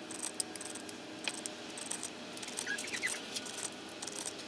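Light, irregular clicks and small rattles of a Penn Fierce II spinning reel's handle being threaded in and cranked a few turns, with a few faint squeaks.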